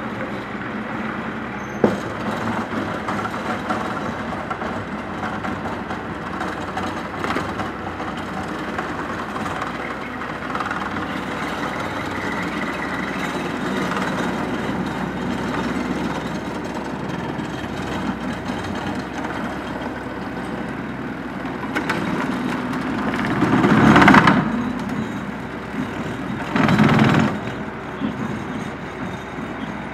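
Compact tractor engine running steadily while its rear-mounted rotary mower cuts tall grass and brush. There is one sharp knock about two seconds in, and two louder surges a few seconds apart near the end.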